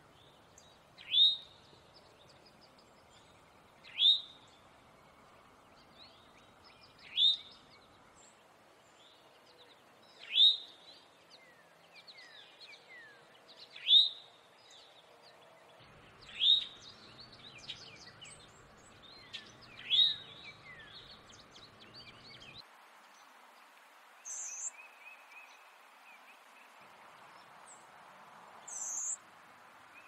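Male eastern towhee giving its alarm call: a short, sharp, sweeping note repeated seven times, about every three seconds. Near the end, two fainter, higher-pitched short notes follow.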